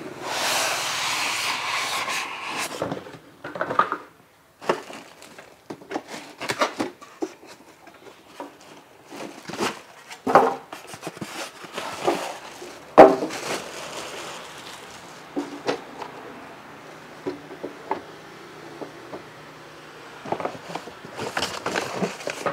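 Unboxing handling noise: an electric contact grill slid out of its cardboard box with a rustling scrape, then plastic wrapping rustling and styrofoam packing pieces rubbing, with scattered knocks and one sharp knock about thirteen seconds in.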